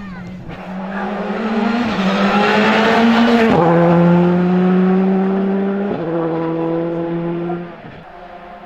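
Skoda Fabia Rally2 car's turbocharged four-cylinder engine at full throttle, revs climbing and then dropping three times with quick upshifts as it passes and pulls away. Near the end it gives way to another rally car's engine, fainter and farther off.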